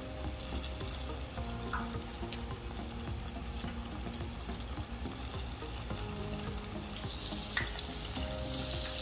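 Breaded swai fillets deep-frying in hot oil in a cast-iron Dutch oven: a steady bubbling sizzle that grows louder and brighter near the end as tongs move the fish in the pot.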